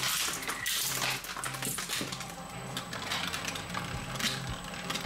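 Twin-shaft industrial shredder's steel blades knocking and cracking a hollow plastic shape-sorter ball, loudest in the first two seconds, with the machine's low hum underneath.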